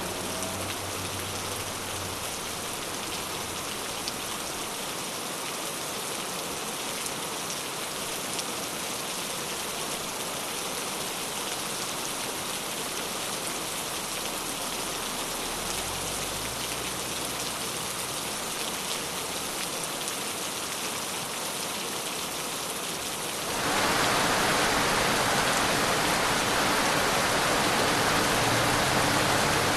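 Steady rain falling on a wet city street, a continuous even hiss that abruptly becomes louder and fuller about twenty-three seconds in.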